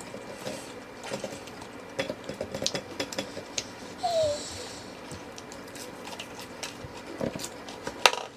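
Scattered light clicks and clatter of dishes and food containers being handled, with a short rustle about four seconds in and a sharper knock near the end.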